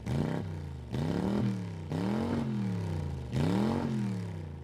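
Motorcycle engine revved in four throttle blips, each rising in pitch and falling back, the last one dying away near the end.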